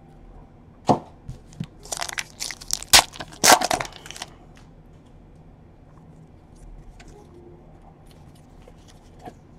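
A single sharp click about a second in, then about two seconds of tearing and crinkling as a trading card pack's foil wrapper is torn open.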